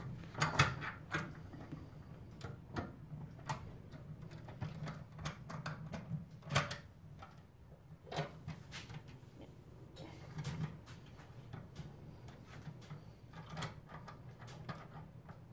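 Scattered light clicks and clinks from handling a brake-pipe flaring bar: the copper pipe being seated in the clamp bar and the wing nuts turned to clamp it. A steady low hum sits underneath.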